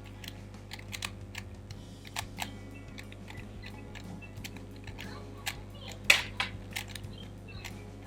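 3x3 Rubik's cube being turned fast during a speedsolve: irregular plastic clicks and clacks of the layers snapping round, with one louder clack about six seconds in, over a steady low hum.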